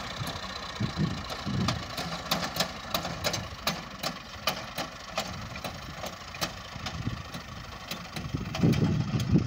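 Farm tractor's diesel engine running while it drives a front-mounted reaper cutting standing wheat, with a regular ticking about three times a second and a louder stretch near the end.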